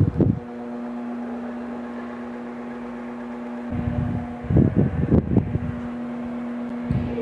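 Arge 60 cm oscillating wall fan running on its lowest speed, its capacitor in good order: a steady motor hum with a few short bursts of low rumble on the microphone, around the middle and near the end.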